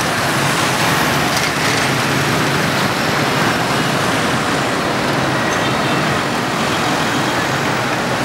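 Busy street-junction traffic, motorbikes and cars passing continuously in a steady din of engines and tyres.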